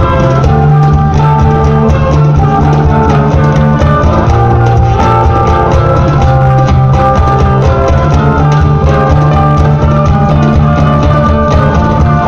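Loud amplified live band music with a drum kit and guitar, playing continuously at an even volume.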